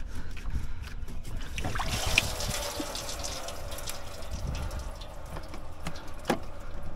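Engine coolant trickling and splashing out of a pulled water-pump hose, starting about two seconds in after some handling thumps, with a sharp knock near the end.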